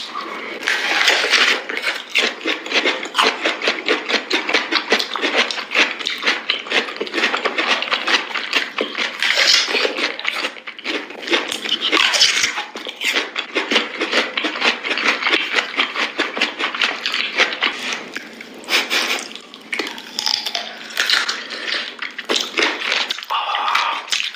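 Close-miked ASMR eating of fresh fruit: biting and chewing, a dense run of crunching and crackling clicks with a few short pauses.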